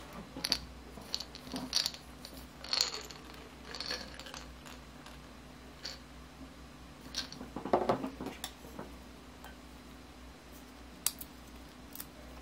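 Whole hazelnuts clinking and rattling against a glass jar as they are shaken out into a hand, followed by scattered clicks and small knocks from handling the nuts and a knife.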